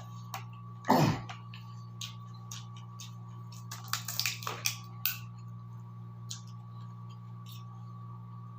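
Mukbang eating noises: one louder mouth sound about a second in, then scattered small clicks and smacks, a cluster of them about four seconds in, over a steady electrical hum.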